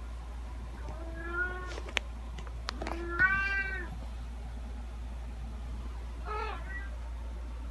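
Domestic cat meowing three times: a clear meow about a second in, a louder one about three seconds in, and a shorter, fainter one near the end. Two sharp clicks fall between the first two meows, over a steady low hum.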